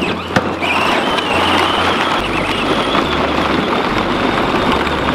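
Battery-powered John Deere kids' ride-on toy tractors driving over gravel: hard plastic wheels crunching and rattling on the stones, with a steady high electric-motor whine.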